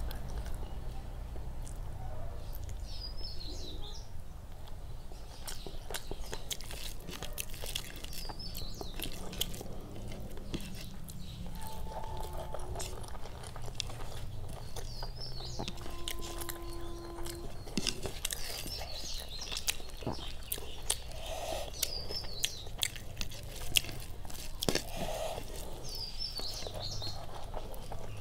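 Eating by hand: fingers squishing rice and dal on a paper plate and mouth chewing, with many small wet clicks and smacks. A bird chirps briefly in the background every few seconds.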